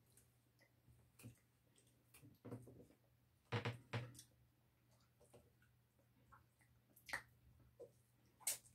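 Quiet eating at the table: a handful of short, soft clicks and taps of a spoon and fingers against ceramic plates, about six in all, the loudest a little past three seconds in and near the end.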